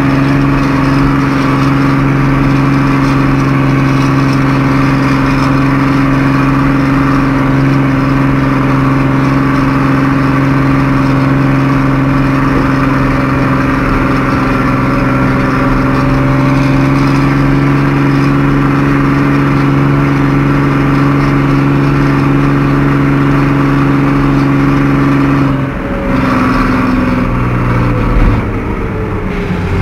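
Fiat 1180 DTH tractor's six-cylinder diesel engine running steadily under load while it pushes a front V-plow through snow, heard from inside the cab. Near the end the engine note changes and the revs fall away.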